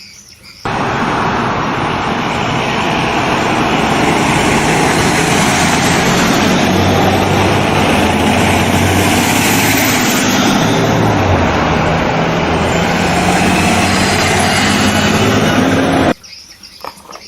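A loud, steady motor-vehicle engine and road-noise rush with a low hum that rises a little in the middle. It starts abruptly and cuts off abruptly, like an edited-in sound effect.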